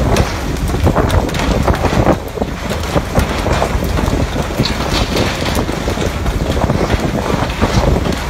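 Wind buffeting the microphone over a steady rush of water along a fishing boat's hull, with frequent knocks and slaps as pole-caught fish land on the deck.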